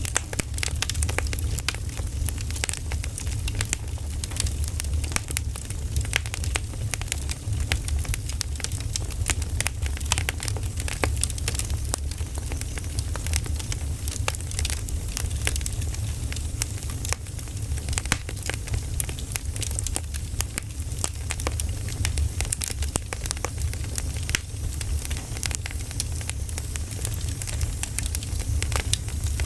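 Campfire of firewood logs burning, crackling and popping with many sharp snaps over a steady low rumble.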